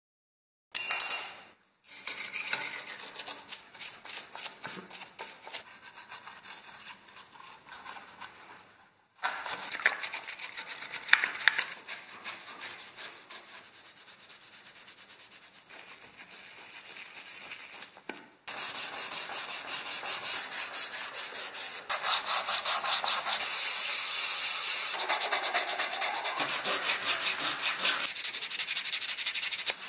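Toothbrush scrubbing a plastic fan blade in a dish of soapy water. About two-thirds of the way in, a flat metal file starts rasping along the edge of a white plastic fan part in quick, even strokes, louder than the scrubbing.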